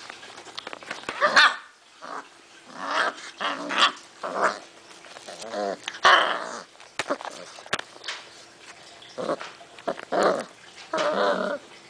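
Six-week-old basset hound puppies giving a string of short calls, about ten of them with brief gaps between, the last one near the end a little longer.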